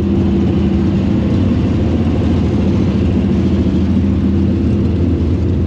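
Late model race car V8 engines running loud and steady at an unchanging pitch.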